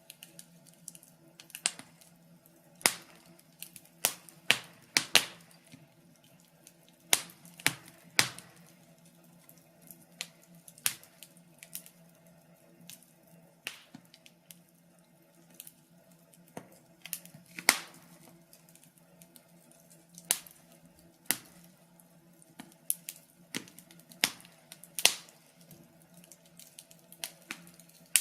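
Wood fire crackling: irregular sharp pops and snaps of burning logs, about one a second and varying in strength, over a faint steady low hum.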